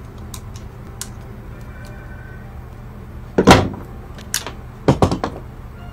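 Pliers and wires being handled at a metal switch box: a few light clicks, then a loud knock about three and a half seconds in and a short cluster of clattering knocks near the end.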